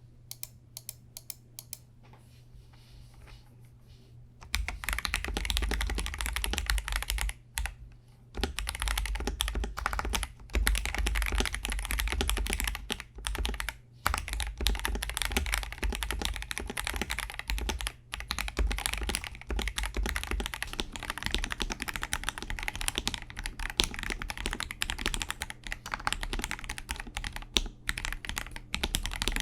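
Typing on a KBD67 Lite R3 mechanical keyboard with Akko Starfish linear switches: a few single keystrokes at first, then fast continuous typing from about four and a half seconds in, with a few brief pauses.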